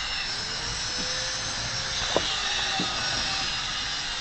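Steady machine-like whir and hiss, with a single sharp click about two seconds in.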